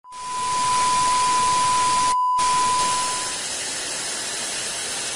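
Analog TV static sound effect: a steady hiss of white noise under a single high, steady test-tone beep. The sound cuts out for a moment about two seconds in. The beep fades away a little after three seconds while the hiss carries on, somewhat quieter.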